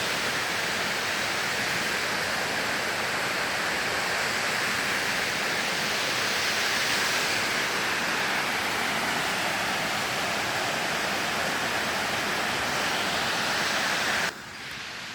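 Waterfall rushing steadily, a continuous even noise of falling water. Near the end it suddenly drops to a quieter level.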